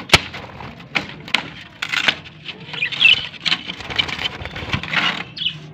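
Scraping, scuffling and sharp knocks on a wooden, wire-mesh chicken coop, with one sharp knock right at the start and short high squeaks about three seconds in.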